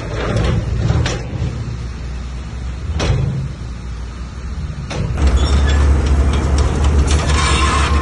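Bulldozer's diesel engine running, with a few sharp metallic knocks or clanks. About five seconds in, the engine becomes louder and deeper.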